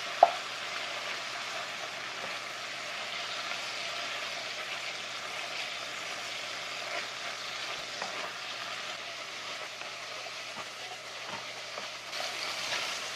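Sliced beef and shrimp frying in oil in a nonstick wok, a steady sizzle, while a wooden spatula stirs them around the pan.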